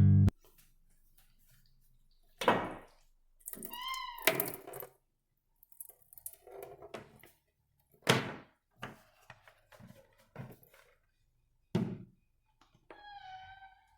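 Household handling sounds: three sharp thunks, about two and a half seconds in, about eight seconds in and near the end, with softer knocks and clatter between them and two short squeaking tones.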